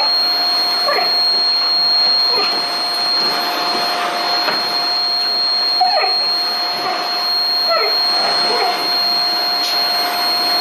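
Vacuum cleaner running steadily with a motor whine, while a dog gives several short barks at it.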